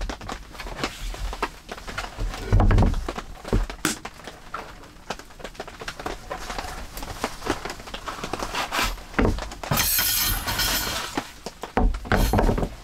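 A large knife working a stick of wood for kindling: irregular knocks, chops and cracks of the blade biting and splitting the wood, with a dull thump a couple of seconds in and a brief scraping, shaving sound around ten seconds in.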